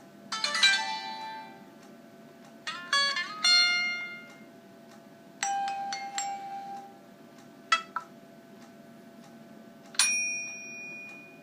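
Stock notification tones of a Huawei Ascend Y330 smartphone, played one after another through its speaker. About six short electronic chimes and dings each ring out and stop before the next one starts.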